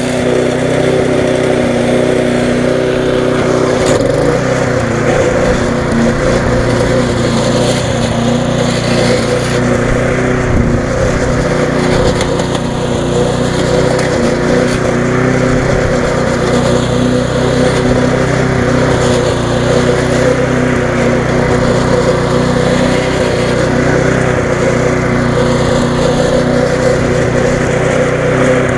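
Viking mulching lawn mower's Briggs & Stratton Classic single-cylinder four-stroke engine running steadily while the mower is pushed through grass.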